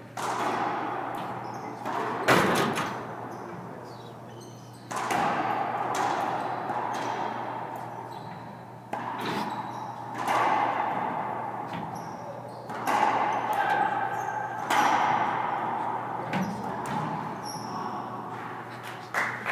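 Racquetball rally: about ten sharp pops of the ball off racquets and walls, one to three seconds apart, each ringing and echoing in the enclosed glass-walled court. The loudest comes about two seconds in.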